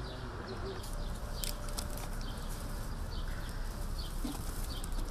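Small birds chirping repeatedly in short chirps, over steady outdoor background noise, with a few brief clicks about a second in.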